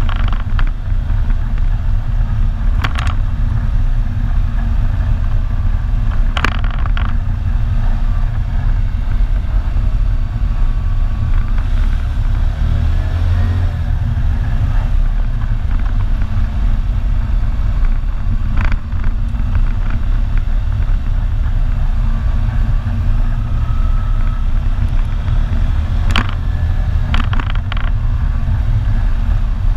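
ATV engine running steadily while riding along a dirt trail, heard from on the machine as a loud, low drone. A few short, sharp knocks cut in, about three and six seconds in, once near the middle, and in a quick cluster near the end.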